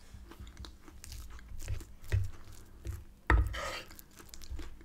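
Close-up chewing of a mouthful of creamy mashed potato with sweetcorn: soft, wet mouth sounds over repeated low pulses. About three seconds in comes a louder, sharper scrape as a metal fork scoops mash off a wooden board.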